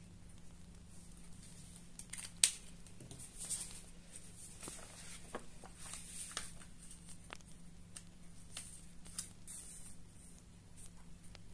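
Printed paper chart pages being handled and laid out on a table: soft rustling and sliding of the sheets with small handling clicks, and one sharp click a little over two seconds in.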